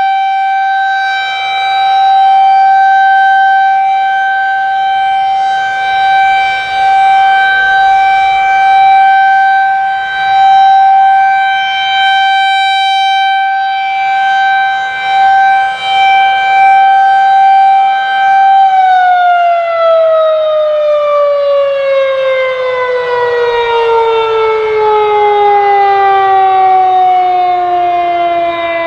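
Federal Signal 2001-SRN rotating outdoor warning siren sounding its monthly test: a steady single tone at full speed, swelling and fading as the head rotates. About two-thirds of the way through it shuts off and winds down, the pitch falling steadily.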